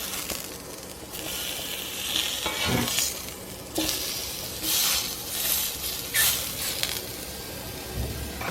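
Food sizzling in a hot frying pan while a utensil stirs it, the sizzle swelling and fading several times with a few clinks.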